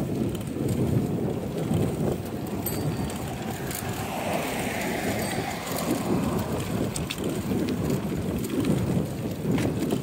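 Wind rumbling steadily on the microphone of a phone riding on a moving bicycle, with a car swelling and fading as it passes about four to six seconds in.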